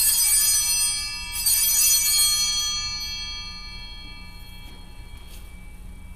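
Altar bells rung twice, at the start and about a second and a half later, each strike ringing bright and high and slowly dying away over a few seconds. They mark the close of the eucharistic prayer at its final Amen.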